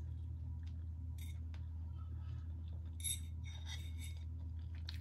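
A fork clinking and scraping against a plate, with a short cluster of light clinks about three seconds in, over a steady low hum.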